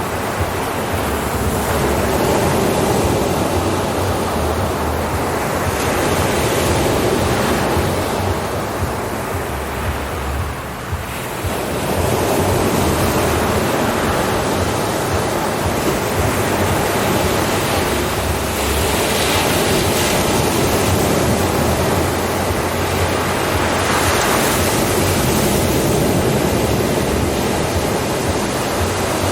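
Ocean surf: waves breaking and washing in as a continuous rushing hiss that swells and eases. There is a brief lull about ten seconds in before the next wave surges.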